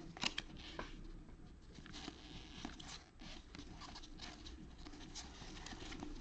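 Stack of baseball cards being flipped and slid over one another in gloved hands: faint, irregular card clicks and rustles, the sharpest about a quarter second in.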